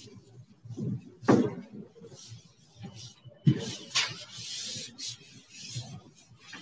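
Blackboard duster scrubbing chalk off a chalkboard in repeated, irregular wiping strokes, with a few sharper, louder strokes among them.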